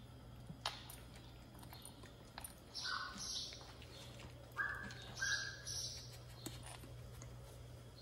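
Pomeranian puppy whimpering: three short, high-pitched whines, one about three seconds in and two close together around five seconds, as it begs for the kitten's food. A few faint clicks sound in between.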